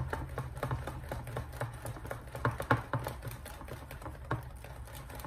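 Wire whisk beating a thin rice-flour batter in a glass bowl: quick, uneven clicking and tapping of the wires against the glass, a few sharper clicks near the middle.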